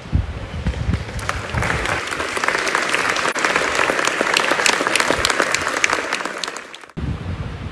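Audience applauding: many hands clapping, swelling after about half a second and then cut off abruptly near the end.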